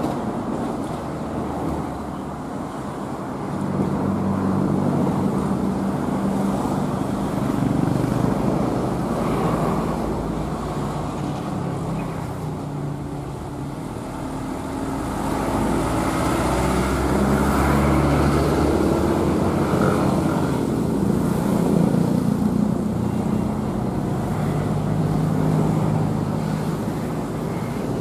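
Motor vehicles running on the road beside the railway, with steady engine hum and road noise that swells twice as vehicles pass, mixed with the diesel engine of an approaching CC 201 locomotive.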